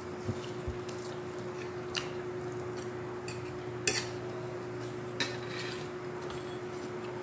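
Spoon clinking and scraping on a ceramic plate during a meal, a handful of short clicks with the loudest about four seconds in. A steady low hum runs underneath.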